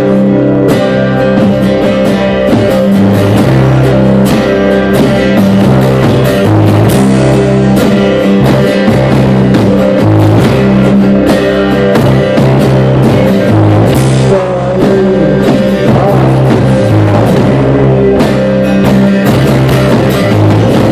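A small rock band playing live: strummed acoustic guitar, electric bass and drum kit, with a man singing, recorded loud and with poor sound quality.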